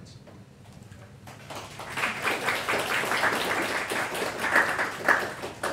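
Audience applauding. The clapping starts about a second and a half in, keeps up, and stops near the end.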